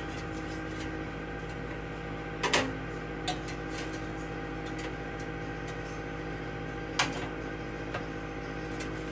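Countertop air fryer oven running with a steady hum, with a couple of sharp metal clinks as the tray and tongs are handled, one about two and a half seconds in and one about seven seconds in.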